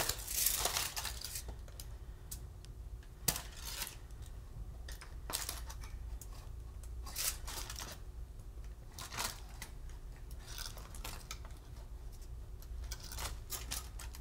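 Aluminium foil crinkling and rustling as cooked chicken pieces are picked out of a foil packet by hand, loudest in the first second or so, then scattered small clicks and taps as pieces are dropped onto the tortilla.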